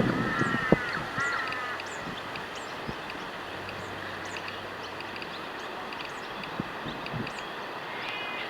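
Bird calls outdoors: a run of short repeated calls in the first second and a half and again near the end, with faint high chirps of small birds over a steady background.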